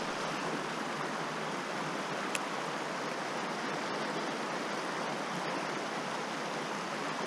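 Steady rush of flowing creek water, with a single faint tick about two seconds in.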